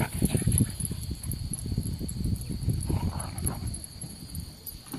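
Insects chirring steadily and high-pitched in the background, under loud irregular low rumbling and knocking close to the microphone.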